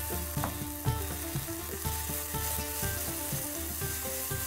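Freshly added chopped onions sizzling in hot oil in a nonstick pan, stirred with a wooden spatula as they start to sauté.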